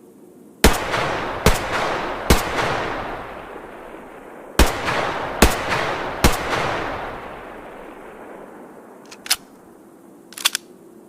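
H&K MP5 submachine gun fired in single shots: two groups of three shots about a second apart, each with a long echoing tail. A few short, light clicks follow near the end.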